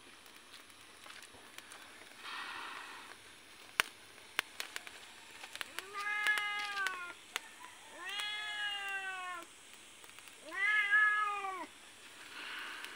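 A domestic cat meowing three times, each call about a second long and rising then falling in pitch, preceded by a few sharp clicks.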